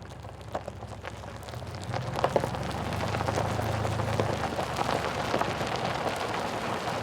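Rain pattering on a surface, a dense crackle of small drops over a steady low hum; it grows louder about two seconds in.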